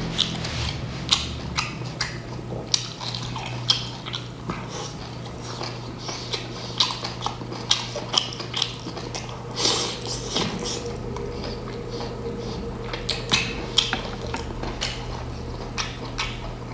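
Close-up seafood eating sounds: irregular wet smacks and sharp clicks of chewing and handling food, a few each second, over a steady low hum.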